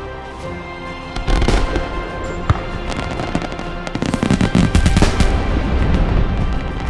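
Fireworks going off: a burst of bangs about a second in, then a rapid string of crackling bangs from about four to five and a half seconds in, over background music.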